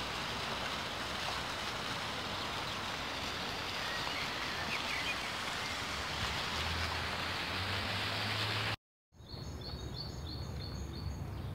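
Steady outdoor noise that cuts off abruptly about nine seconds in. Then a bird sings a quick run of about eight short, high notes.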